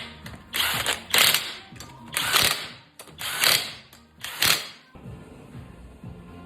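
Ratchet wrench working the wheel's lug nuts down in five short bursts of ratcheting as the wheel goes back on.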